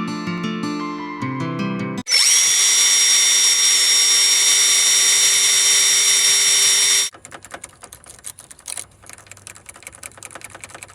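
After a couple of seconds of guitar music, a power drill runs loud and steady at one constant speed for about five seconds, then stops abruptly. Faint irregular clicks and taps follow.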